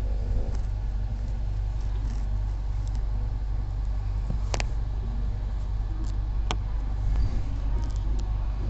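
Passenger train rolling slowly into a station: a steady low rumble from the moving coach, with two sharp clicks about four and a half and six and a half seconds in.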